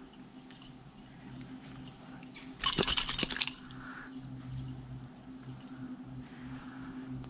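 A brief clattering rattle of about a second, a third of the way in: a small bass dropping into a mesh landing net and flopping against the boat deck. Insects drone steadily throughout.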